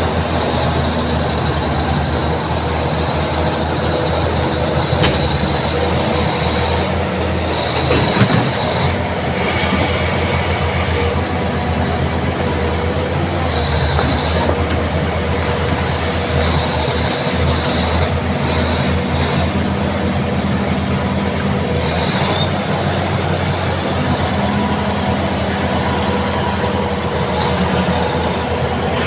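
Bulldozer's diesel engine running steadily, with high squeals that come and go and occasional clanks from its steel tracks, as the machine works while hung up on a tree stump under its belly. A louder knock comes about 8 seconds in.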